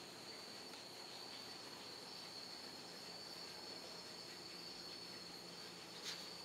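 Faint, steady, high-pitched insect trill, with one light click near the end.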